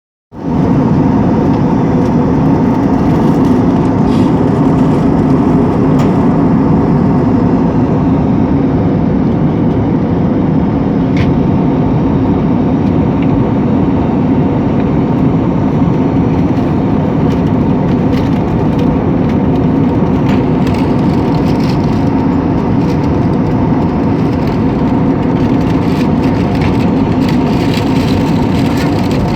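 Steady airliner cabin noise in flight: engine drone and rushing air heard from inside the cabin, loud and unchanging, with a couple of faint clicks.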